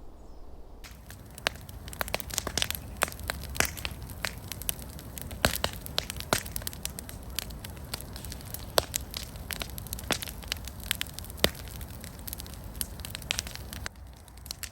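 Bonfire of old dry wooden garden staking burning well, with frequent sharp crackles and pops over a steady low rush of flame, starting about a second in.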